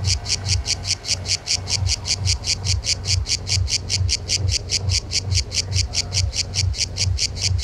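Cicada singing on a tree trunk: an unbroken train of rapid, even pulses, about five or six a second.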